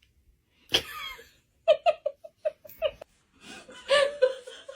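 A person laughing, used as a laugh sound effect. It starts about a second in, goes into a quick run of short 'ha' pulses, about five a second, and swells into a longer laugh near the end.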